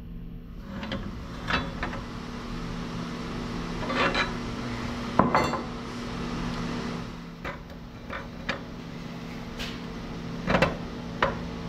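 Scattered metal clanks and knocks, about eight in all, as heavy metal parts are handled and shifted, over a steady machine hum.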